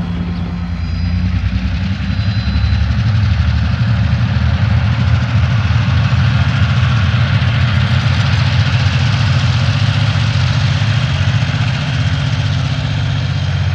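Several Tasrail diesel locomotives at the head of an empty ore train, their engines running under power with a steady low throb as the train approaches.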